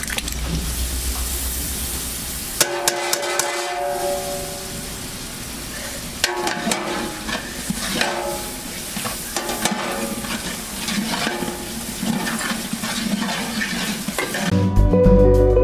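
Biryani masala frying and sizzling in a large pot as it is stirred, with scattered scrapes and knocks of the stirring utensil against the pot. Music comes in near the end.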